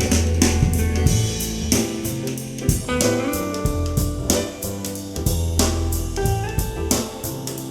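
Instrumental music with guitar, bass and drum kit, reproduced through an in-ear monitor for a sound demo; the bass line and drums keep a steady beat.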